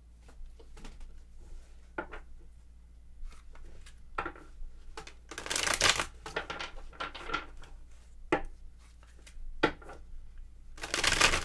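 A deck of tarot cards being shuffled and handled. There are bursts of rustling shuffling, the longest about five to six and a half seconds in and another near the end, with light card taps and flicks between.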